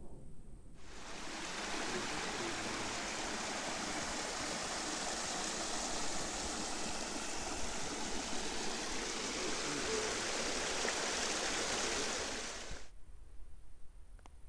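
Rushing water of a mountain creek, a steady even rush that starts about a second in and cuts off abruptly near the end.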